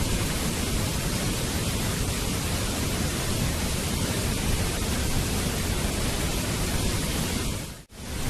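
Waterfall, a steady even rush of falling water. Near the end it briefly fades out and comes straight back in, as a looped recording restarting.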